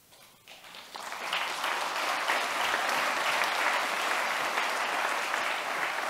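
Audience applauding, starting about a second in, building quickly and then holding steady.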